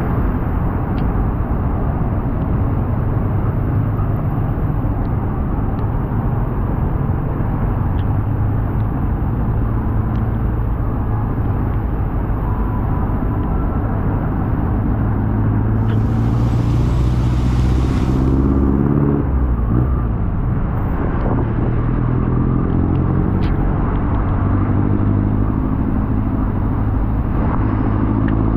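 Motorcycle engine running under steady road and wind noise while riding; the engine note rises as it speeds up about halfway through, and again later on.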